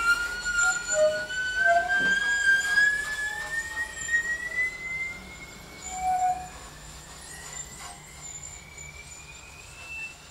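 Cello bowed high on the string in a very slow, steady upward glide in pitch, a thin whistling tone with a few short lower notes in the first half. It grows fainter toward the end.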